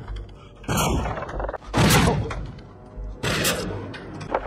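Three loud gunshots about a second apart, each with a short echo, over faint background music.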